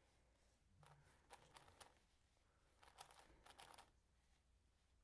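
Faint plastic clicking and rattling as the faces of a MoFang JiaoShi MeiLong Kilominx are turned by hand, in two short spells about a second in and about three seconds in.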